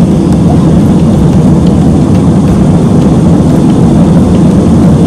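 Loud, steady roar of a jet airliner's engines and rushing air, heard from inside the passenger cabin.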